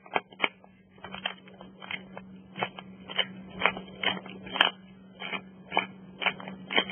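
Pepper grinder being twisted: a run of uneven crunching clicks, about two or three a second, over a steady low hum.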